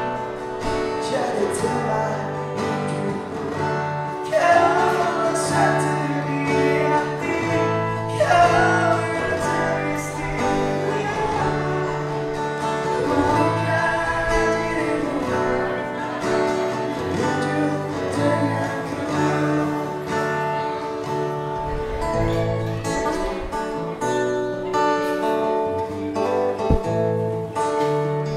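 Acoustic guitar accompanying a man singing a slow pop song, played live through a small PA.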